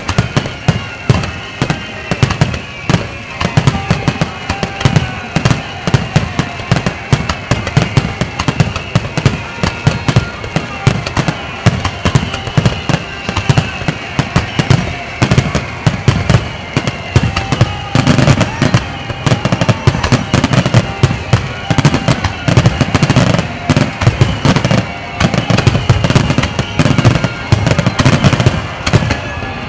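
Fireworks finale barrage: aerial shells bursting continuously, many bangs a second with no break. Music plays underneath.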